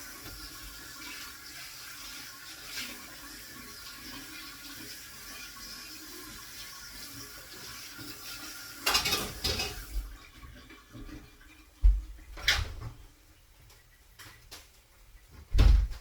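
Kitchen tap running with a steady hiss, shut off about ten seconds in, followed by a few sharp clunks of pots or dishes.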